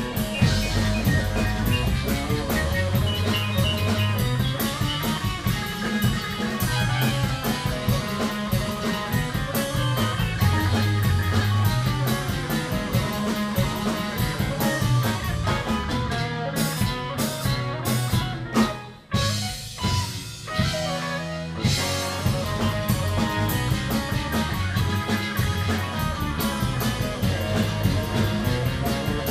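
A rock band playing a progressive-rock piece live: a drum kit, electric guitar and keyboards together. About two-thirds of the way through, the band breaks into a few short, sharp accents and nearly stops, then the full band comes back in.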